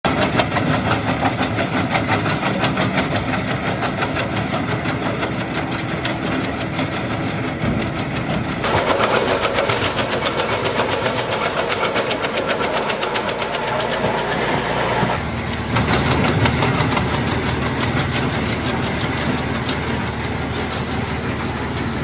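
Wood chippers running as branches are fed in, engine noise with a fast, even pulse. The sound changes abruptly twice as it moves from a tractor-driven chipper to a gasoline-engine chipper and then to a self-propelled chipper.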